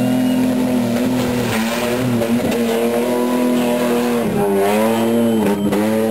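Modified off-road 4x4's engine revving hard at a steady high pitch as it drives through deep sand, with two brief sharp drops in revs about four and five and a half seconds in.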